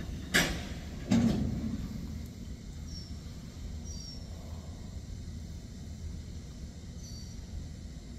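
Two sharp metal clanks from a freight train's boxcar couplers as the cars shift slightly. They come about a second apart, the second heavier with a low ring, followed by a faint steady rumble.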